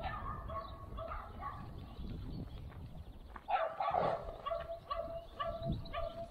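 A dog whining and yipping over and over in short high calls, with a louder flurry of them about three and a half seconds in.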